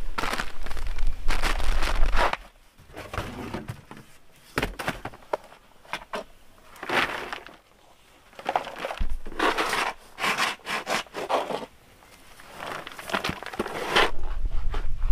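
Dried cassava chips rustling and clattering in irregular bursts as they are poured and scooped from a plastic tray onto a woven bamboo tray.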